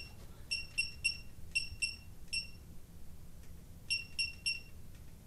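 Digital torque wrench giving short, high electronic beeps, about nine in quick groups of two or three, while it is set for the 55 ft-lb crankshaft bolt.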